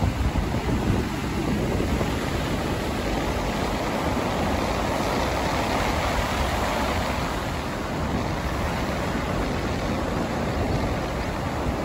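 Ocean surf breaking and washing up the sand in a steady wash, swelling a little around the middle, with wind rumbling on the microphone.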